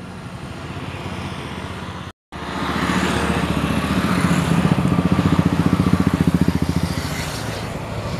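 Jet engines of a Boeing 737-800, CFM56-7B turbofans, running with a steady rumble and a fast pulsing buzz. The sound cuts out for a moment about two seconds in. It comes back louder and then eases slightly near the end.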